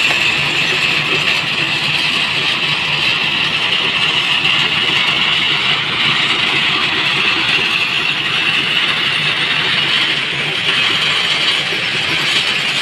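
An engine running steadily under a constant high-pitched hiss.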